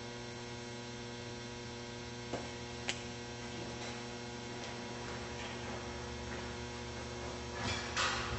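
Steady electrical mains hum in a quiet hall, with two small clicks a little before the middle and some faint knocking and shuffling near the end.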